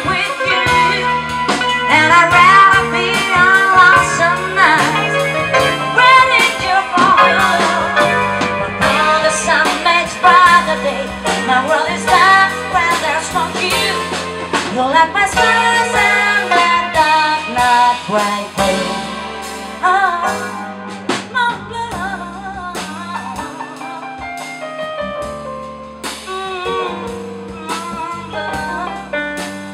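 Live band with drum kit, electric bass and keyboard playing, a woman singing a gliding melody into a hand-held microphone over it for about the first twenty seconds; after that the band plays on more quietly.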